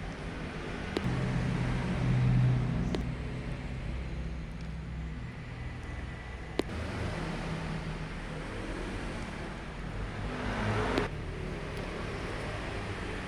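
A low, steady, engine-like rumble throughout, with a few sharp clicks several seconds apart, like metal tools and parts being handled during pump disassembly.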